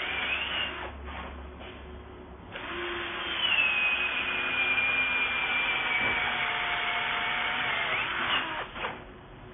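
XCORT XDC08-12S electric drill boring into a wooden board: a short burst of the motor at the start, then a long run from about two and a half seconds in. Under load its whine sinks slowly in pitch over about five seconds, then climbs sharply as the bit frees up, and the motor stops about nine seconds in.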